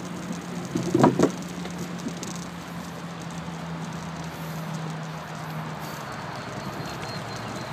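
Bicycle riding over a dirt path: steady rolling and rattling noise over a low hum that fades out about six seconds in, with a short clatter of knocks about a second in as the wheels come off the end of the bridge deck onto the path.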